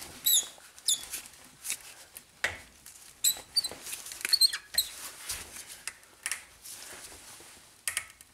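Pliers gripping and twisting the seized stub of a snapped starter bolt in a starter motor held in a vise: a string of short high squeaks and scattered clicks of metal working on metal.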